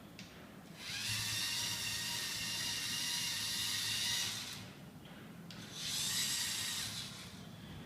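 LEGO Mindstorms EV3 car's large motors and gearing whining as the car drives, in two runs: a longer one of about three and a half seconds starting about a second in, then a shorter one of about a second and a half near the end.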